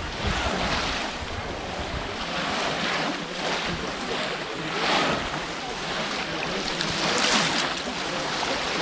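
Water splashing and churning as many people wade through a shallow muddy pond and plunge bamboo polo fish traps into it, with a louder surge of splashing every couple of seconds.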